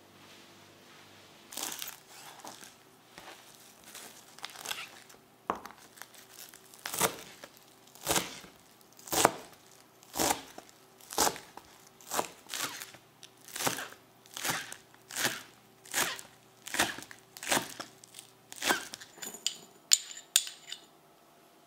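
Chef's knife chopping fresh coriander on a plastic cutting board: a steady run of crisp cutting strokes, about one a second, each ending in a light knock on the board. Near the end come a few light clinks of a metal spoon against a ceramic bowl.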